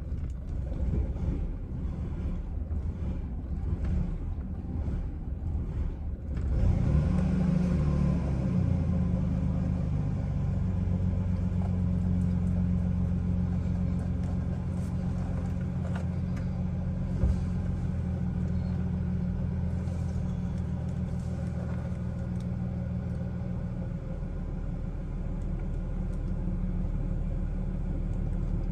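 Chevrolet Silverado engine cranking slowly on a nearly dead battery, in uneven strokes about twice a second, then catching about six seconds in and running at idle.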